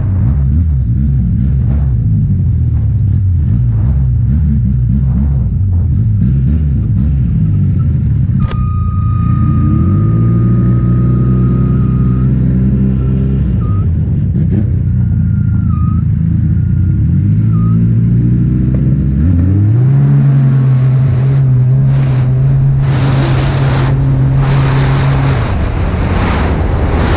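Snowmobile engine idling roughly, then revving up and holding twice, before running hard with a rising rush of track and wind noise near the end as the sled races alongside others.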